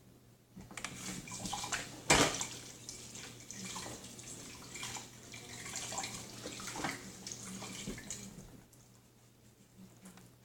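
Irregular wet squelching and splashing, with one sharp knock about two seconds in; it stops about two seconds before the end.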